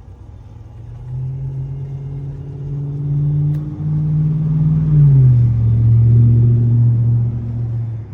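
Electric motor of a cordless handheld pool vacuum running with a steady hum. About five seconds in its pitch drops and it gets louder, and it cuts off abruptly at the end.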